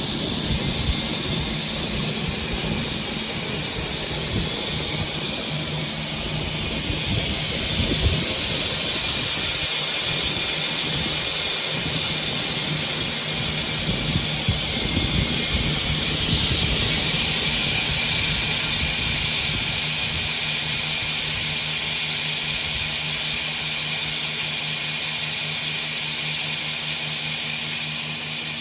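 Felder Format 4 Kappa 400 sliding-table panel saw running: a steady machine hum with a broad hiss of the spinning blade and dust extraction, a few light knocks in the middle, easing slightly near the end.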